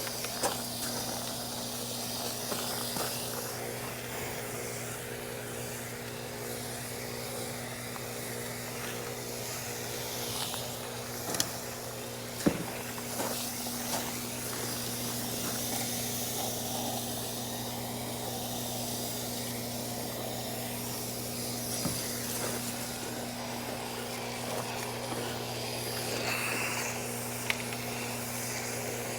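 Water hissing from a hose spray nozzle as the condenser's side panels are rinsed, over a steady low electrical hum, with a few sharp clicks about halfway through.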